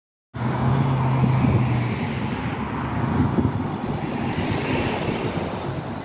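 Road traffic: cars driving past close by on a busy street, with a steady low engine hum for the first couple of seconds.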